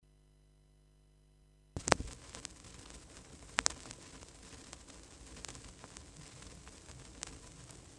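Vinyl record's lead-in groove playing: steady surface hiss with scattered clicks and pops. A sharp click a little under two seconds in marks the start, after near silence, and the loudest pops come just after it and again about three and a half seconds in.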